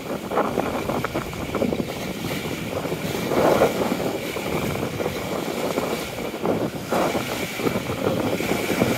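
Small wind-driven waves splashing and breaking on a lakeshore, with wind gusting on the microphone; the rush swells and eases several times, most strongly about three and a half seconds in.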